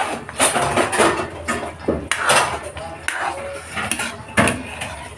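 Metal ladle knocking and scraping against a cooking pot of thick stew, a handful of clinks, the loudest about four seconds in.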